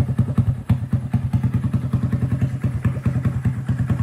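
Honda Grom's single-cylinder 125 cc engine idling steadily through an aftermarket IXIL dual-outlet slip-on exhaust, a rapid even train of exhaust pulses.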